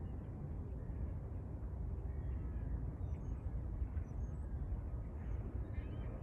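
Outdoor ambience: a steady low rumble, with faint bird calls now and then.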